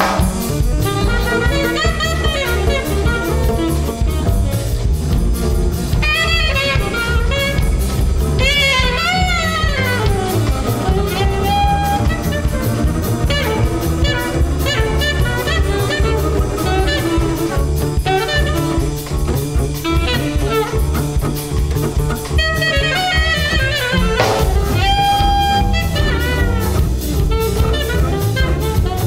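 Live jazz quartet: a saxophone plays free, bending phrases over two double basses and a drum kit. The saxophone slides down in pitch about nine to ten seconds in.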